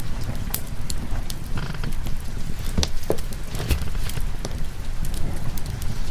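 Wood fire crackling with scattered sharp pops over a steady bed of rain and low rumble.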